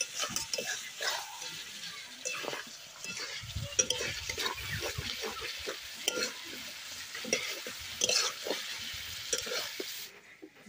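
Chicken kosha sizzling as it fries down in its thick spice paste in a metal pot, a spatula stirring it with frequent scrapes and knocks against the pot. The sound drops away near the end.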